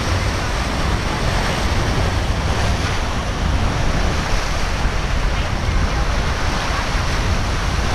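Ocean surf breaking and washing steadily, with wind buffeting the microphone in a low rumble.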